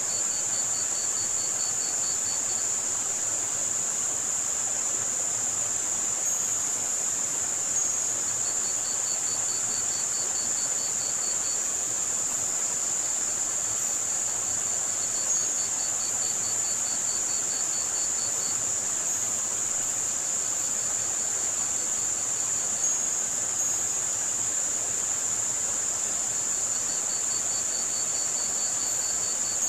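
Layered sound-masking track for tinnitus: a steady band of high-pitched white noise over a broad even hiss, with cricket chirping in trains of rapid pulses about three seconds long that recur every several seconds, and brief high chirps scattered through.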